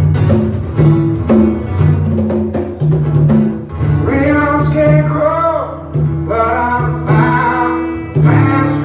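Live acoustic band: two acoustic guitars strummed with a pair of congas keeping the beat, and a man's lead vocal coming in about four seconds in.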